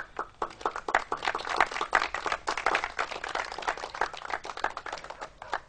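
Audience applauding a just-finished choir song: a patter of distinct hand claps that starts at once and dies away near the end.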